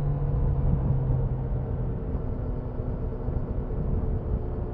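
Triumph Daytona 660's 660 cc three-cylinder engine running at a steady speed on the move, with wind and road rumble on the microphone. Its strongest low tone fades about two seconds in.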